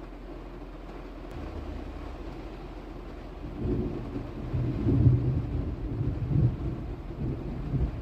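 A steady low hum, then from about three and a half seconds in an uneven low rumbling that swells and drops back in gusts, louder than the hum.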